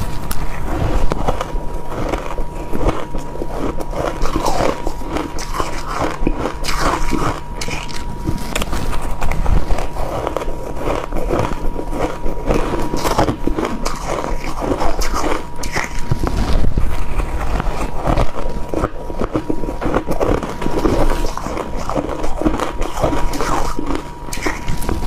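Close-up biting and crunching of crushed and shaved ice, a rapid, irregular run of crisp crunches. A thin steady high tone sits underneath.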